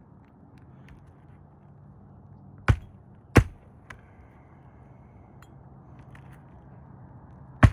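Roofing hatchet driving a roofing nail through asphalt shingles: two sharp strikes a little under a second apart midway, a light tap, then another strike near the end.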